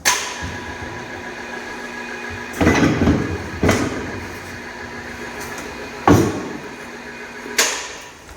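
Excavator running with a steady hydraulic whine as the manual quick coupler lifts away from the stumper attachment, with five sharp metal clunks.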